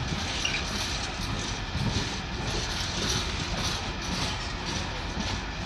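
Freight train of yellow open wagons rolling past at speed: steel wheels running on the rails, with a regular clatter about twice a second as the wheels cross rail joints.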